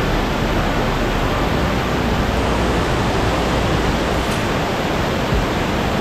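Monsoon waterfall and stream, its water rushing in a loud, steady noise.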